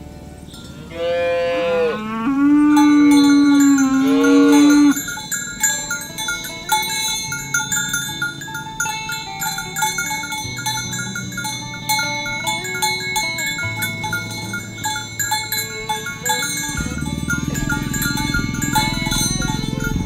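A cow mooing, one long call starting about a second in and lasting about four seconds. It is followed by steady, chiming bell-like tones.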